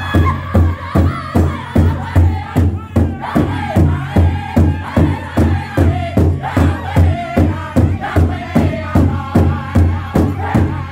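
Powwow drum group singing in unison over a big bass drum, struck together by several drumsticks in a steady beat of about two to three strokes a second. The voices are high-pitched and slide up and down in pitch.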